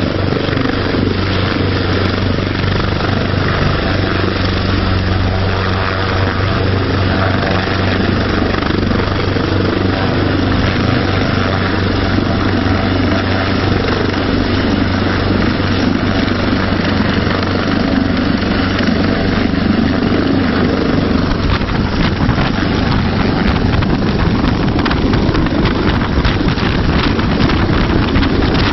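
A Coastguard AgustaWestland AW189 search-and-rescue helicopter hovering low, with a steady rotor and turbine drone. Rotor downwash buffets the microphone harder in the last several seconds as the helicopter comes close overhead.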